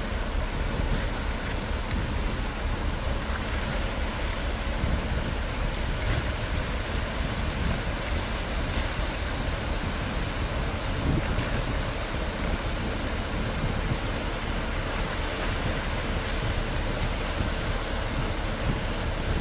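Steady wind blowing on the microphone over a continuous rush of water along the shore.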